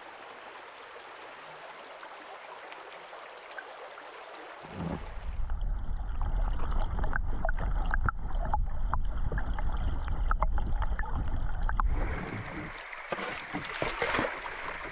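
Running water of a shallow river riffle, then about five seconds in the sound goes underwater: a louder, muffled low rush of current with nothing high-pitched and many scattered clicks and ticks. About twelve seconds in it comes back above the surface to open stream water running.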